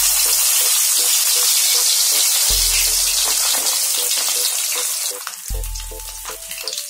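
Masala-coated seer fish piece frying in hot oil in a kadhai: a loud, steady sizzle as the fish goes into the oil, easing a little about five seconds in.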